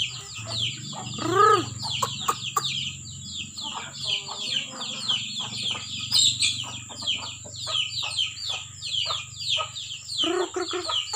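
Village chickens, kampung crossed with bangkok: a brood of chicks peeping constantly in quick, high, falling cheeps, with a hen's call about a second and a half in and more clucking near the end.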